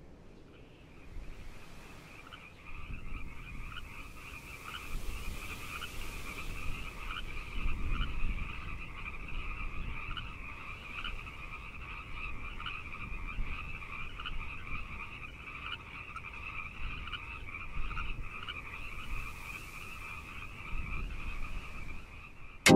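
A chorus of many frogs calling at once: a steady, high-pitched chirping that runs on without pause, over a faint low rumble.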